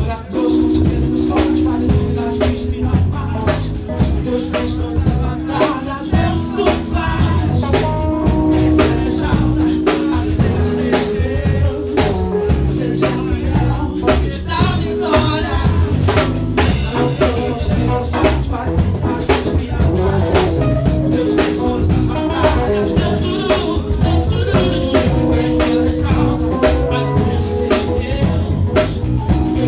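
Live band music: electric bass, drum kit and keyboard playing together, with a voice at the microphone.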